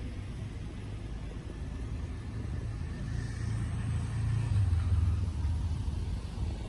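Low rumble of a passing road vehicle, swelling to its loudest a little past halfway.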